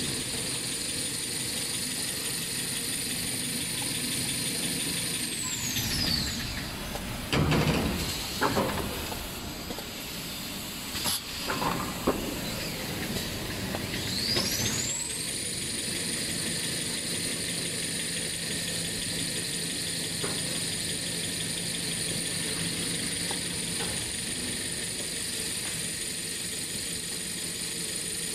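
Toilet paper production line machinery running with a steady high whine. The whine glides down and drops out about six seconds in, then glides back up and holds near fifteen seconds. In between come a few loud bursts of noise and sharp clicks.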